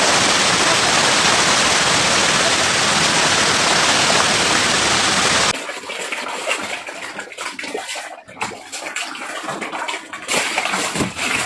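Steady rushing of river water at the bank. About five and a half seconds in it cuts off suddenly, giving way to quieter, uneven splashing and knocks.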